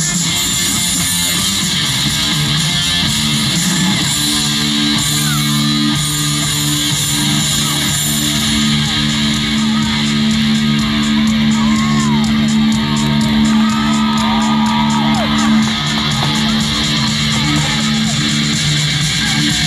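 Belly-dance music played over outdoor PA speakers: a held low drone with plucked-string melody, and a fast high ticking rhythm joining about nine seconds in.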